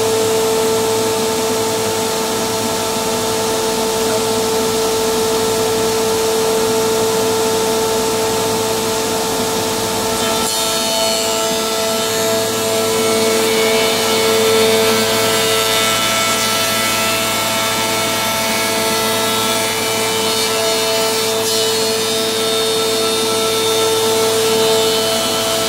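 QMB620AT four-sided planer running and planing wood boards: a steady, loud whine from the spinning cutter heads, with several held tones over a rough cutting noise. About ten seconds in, the cutting noise turns brighter and hissier.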